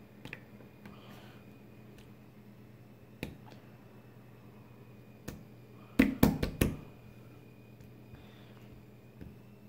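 Sharp clicks and snaps from hands squeezing and stretching a small lump of red slime: a few single clicks, then a quick run of four or five loud ones about six seconds in, over a quiet room with a faint steady hum.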